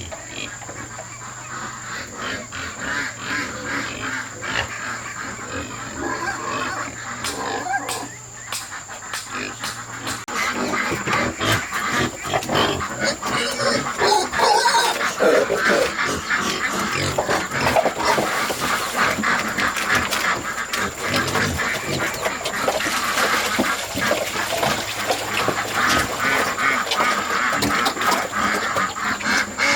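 Farm animals calling, a dense, continuous run of short calls that gets louder about ten seconds in.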